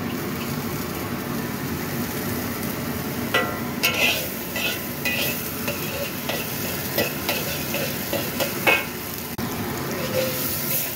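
Minced garlic sizzling in hot oil in a wok while it is sautéed until fragrant. From about three seconds in, a spatula scrapes and knocks against the wok again and again as the garlic is stirred.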